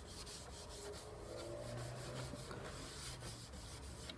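A cloth-wrapped felt pad rubbed back and forth in quick, faint strokes over a white uPVC window profile, buffing fine polishing paste into a repaired patch to bring back its gloss.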